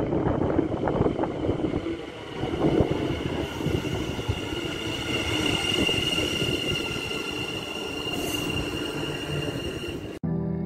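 NS Sprinter New Generation (SNG) electric multiple unit pulling into the platform and slowing, a loud rumbling noise joined from about four seconds in by a steady high whine. Music cuts in just before the end.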